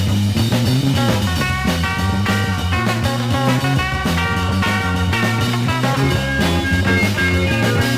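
Late-1960s psychedelic rock instrumental break: band playing with guitar, bass and drums, no vocals.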